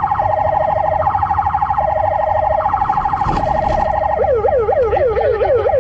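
Police car siren sounding in a rapid pulsing warble, switching about four seconds in to a fast yelp that sweeps up and down about four times a second, over the low rumble of the car's engine.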